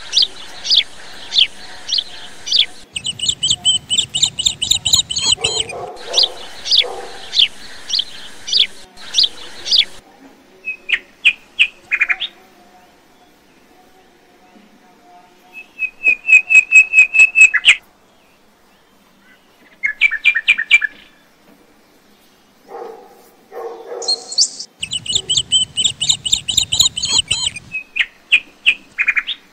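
Birds chirping in quick runs of short, repeated high chirps with pauses between the runs, and a low rumble twice underneath.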